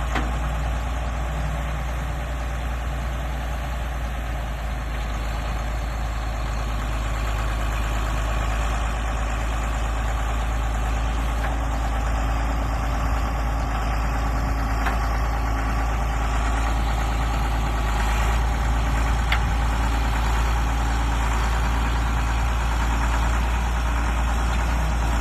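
Truck engine running steadily on the road while hauling a load of bales.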